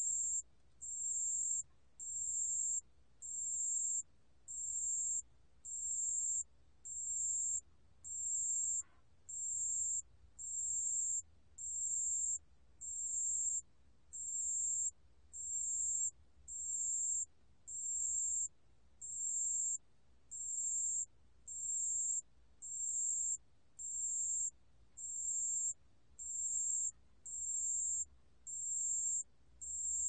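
Calling song of a 담색방울벌레, a bell cricket: a very high, clear ringing trill of under a second, repeated at an even rhythm about every second and a quarter, recorded at 28 °C.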